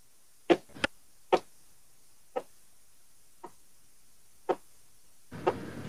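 A series of short, sharp taps or clicks, six of them spread irregularly over about five seconds, with a faint hiss coming in near the end.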